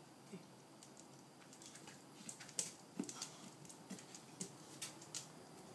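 Boxer dog jumping and snapping at soap bubbles. Faint, irregular clicks and taps come from its claws on the patio and its jaws snapping, several a second from about two seconds in.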